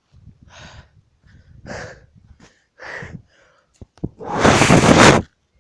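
A person breathing close to the microphone, three breaths about a second apart, followed about four seconds in by a loud rush of noise lasting about a second.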